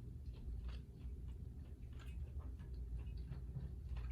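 A person chewing and eating, with many small irregular clicks and smacks, over a steady low hum.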